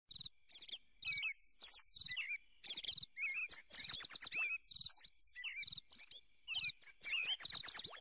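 Many caged exotic finches, zebra finches among them, chirping. They give quick runs of short calls, some sliding up and down in pitch, with brief gaps between the runs.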